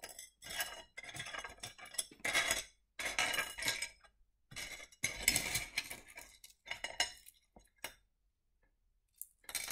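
Pieces of rough Lightning Ridge opal clinking and rattling against each other and the dish as fingers stir through the pile. The clatter comes in several spells over the first eight seconds, then one short rattle near the end.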